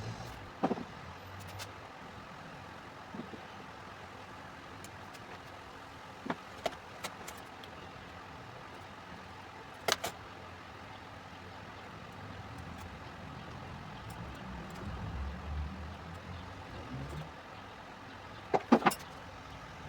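Sharp knocks and clicks a few seconds apart, typical of wood pieces and tools being handled and set down, over a steady low hum; a low rumble swells and fades in the middle, and a quick cluster of knocks comes near the end.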